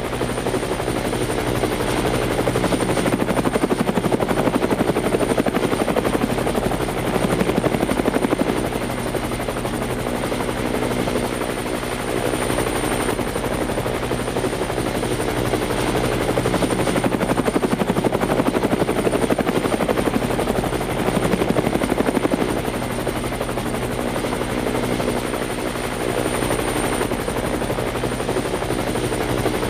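Aircraft rotors whirring steadily, with a fast rhythmic chop and a thin high whine above. The level swells and eases every few seconds.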